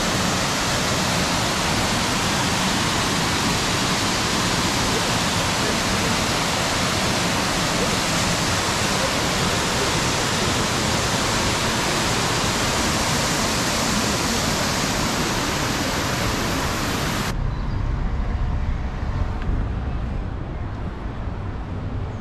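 Triberg Falls, a tall cascading waterfall, rushing in a steady, even roar. About seventeen seconds in it cuts off abruptly and a quieter, low-rumbling street ambience takes over.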